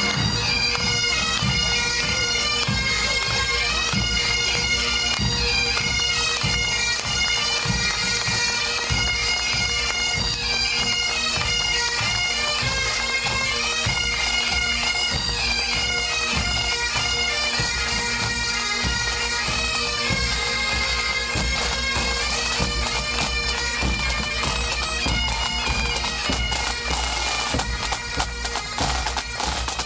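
Highland pipe band playing a march: great Highland bagpipes with a steady drone under the tune, backed by snare, tenor and bass drums. The drums come through more strongly near the end.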